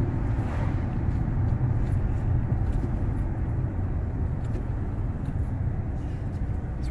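2014 Dodge Charger SRT's 6.4-litre HEMI V8 through its Corsa exhaust, a steady low rumble as the car cruises after accelerating, with road noise mixed in.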